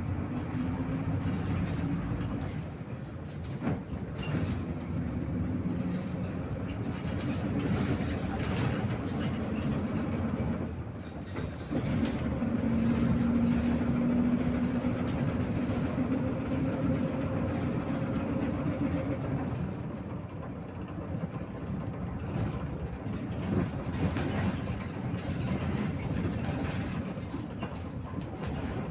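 MAZ-103 city bus running along its route: steady diesel engine and drivetrain noise with a low hum that swells as the bus picks up speed about twelve seconds in, then eases off.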